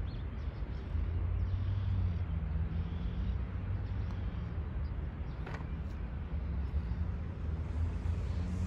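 A single light click about five and a half seconds in: an Odyssey White Hot 2-Ball putter striking a Titleist Pro V1 golf ball on a short putt. It sits over a steady low outdoor rumble like distant traffic.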